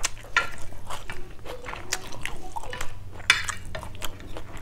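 Close-miked wet chewing and mouth sounds of a person eating rice, with irregular sharp clicks that include chopsticks and a metal spoon tapping on a plate.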